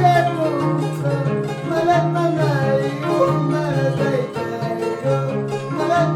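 Peruvian harp playing a repeating low bass pattern, with a wavering melody line over it.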